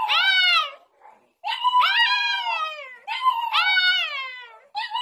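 A pug howling: a string of drawn-out howls, each rising and then falling in pitch, with short breaks between them.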